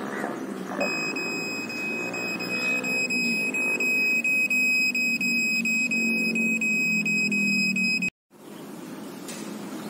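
Satlink WS-6933 satellite finder meter beeping in a rapid, near-continuous high tone, its audible signal that the dish is locked onto the satellite with strong signal quality. A low hum runs underneath, and all the sound cuts off suddenly about eight seconds in.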